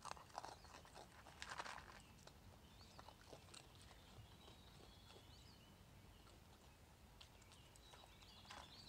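Raccoon chewing and crunching food from a plastic tub: a run of crisp crunches in the first two seconds, a few scattered clicks in the middle, and crunching again near the end.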